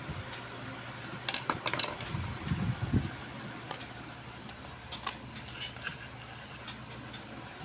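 Metal parts and hand tools clicking and clinking as an angle grinder is worked on by hand, with a few low knocks early on, over a steady electric-fan hum.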